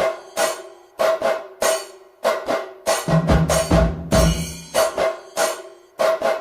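Background music with a steady percussive beat, about three strikes a second over held tones.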